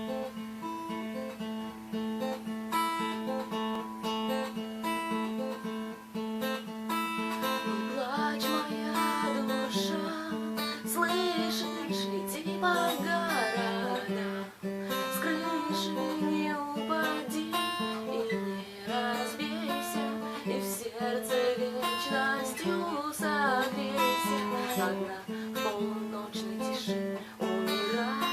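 Instrumental song intro: strummed acoustic guitar over a steady held low note, joined about eight seconds in by a wavering, gliding lead melody.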